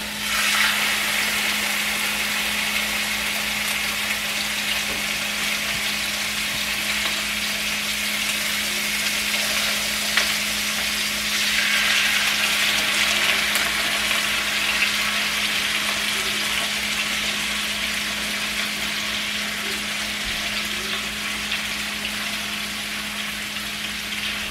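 Raw pork pieces sizzling in hot corn oil in a skillet as more are laid in. The sizzle swells about half a second in and again around twelve seconds in, as fresh meat hits the pan.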